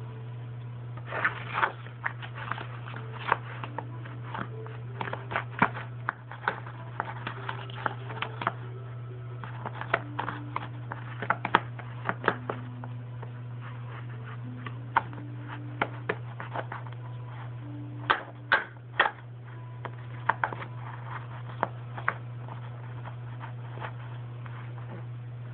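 Irregular light clicks and taps of small plastic toys being handled and set down, in small clusters, over a steady low hum.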